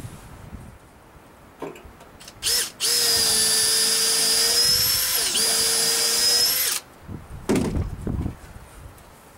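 Cordless drill running: a short burst, then a steady whine for about four seconds that dips briefly partway through before stopping.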